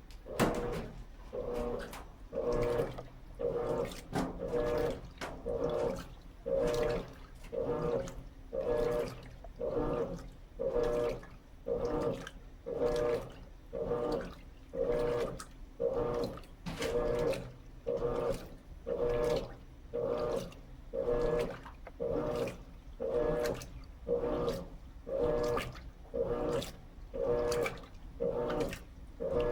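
Electrolux LT13B top-load washing machine agitating a load of sheets and towels in water. Regular strokes come about once a second, each a motor hum with water sloshing.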